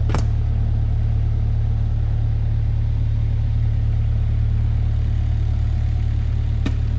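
A JCB compact loader's diesel engine idling steadily as a low drone, with a short knock about a second in and another near the end.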